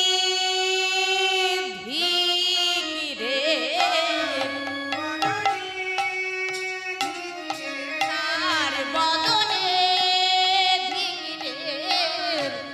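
A woman sings a devotional Bengali kirtan line into a microphone, holding long, wavering notes with ornamental slides in pitch. Under her voice are a steady held accompanying note and scattered percussion strokes.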